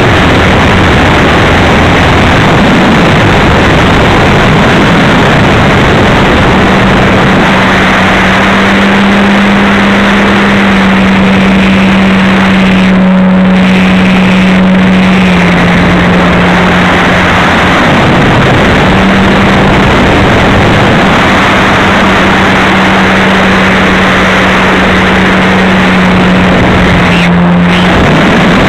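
A model airplane's motor and propeller, picked up by the onboard camera, give a steady hum that steps slightly down and up in pitch several times with the throttle. Loud wind rush runs under it.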